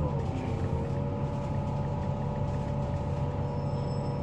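Volvo B9TL double-decker bus heard from on board while under way: a steady diesel engine hum with a whine of several even tones above it. A faint high steady tone joins about three and a half seconds in.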